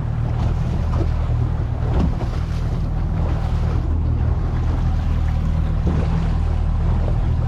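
Small fishing boat's motor running with a steady low hum, under wind noise on the microphone and the sound of the sea.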